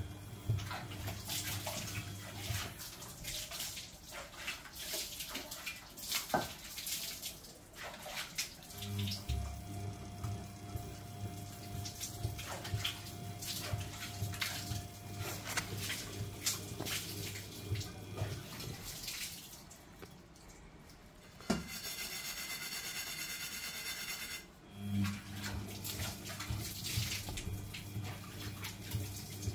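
Front-loading washing machine in its wash cycle: soapy water sloshing in the turning drum, with a low motor hum that runs in stretches of several seconds and stops again as the drum pauses and reverses. There is a brief lull about two-thirds through.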